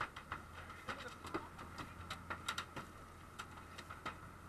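Scattered light taps and knocks, irregular and a few each second, over a steady low hum from the boat's engine.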